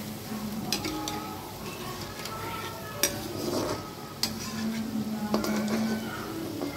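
Bread gulab jamun balls deep-frying in hot oil in a kadhai, sizzling steadily, while a metal perforated slotted spoon stirs them gently and clinks sharply against the pan a few times.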